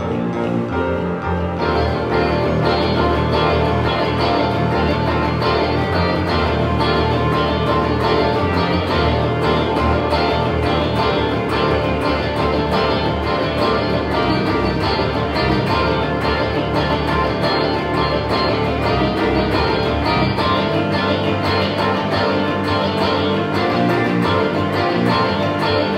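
Live band of two electric guitars, electric bass, piano and drum kit playing a minimalist piece of interlocking repeated figures in a dense, steady texture. A higher layer joins about two seconds in, and the low part shifts near the end.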